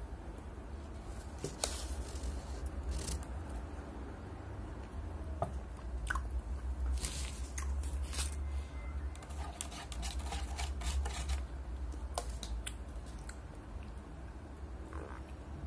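Close-miked eating sounds: a person chewing with scattered wet clicks and lip smacks. Near the end comes drinking from a paper cup. A steady low hum lies underneath.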